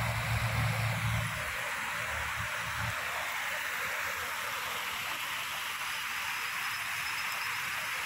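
Water rushing steadily over a concrete weir, an even rushing noise throughout. A low rumble sits under it for about the first second and a half.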